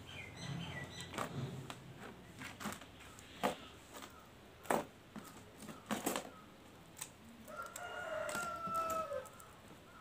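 Small sharp clicks and taps as earrings are handled and fitted at the ear, then a rooster crowing once for about a second and a half near the end.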